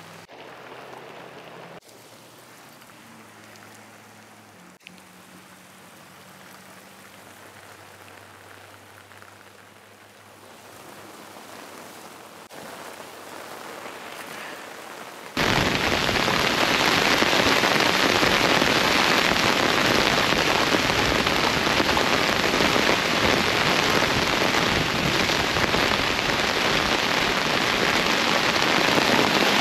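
Heavy rain falling: a soft steady hiss with a faint low hum underneath at first, then about halfway through it jumps suddenly to a loud, dense hiss of downpour.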